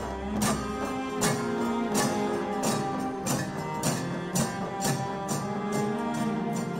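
South Indian procession band playing: drums (melam) and cymbals (thalam) strike a steady beat of about three strokes a second under a held, pitched melody.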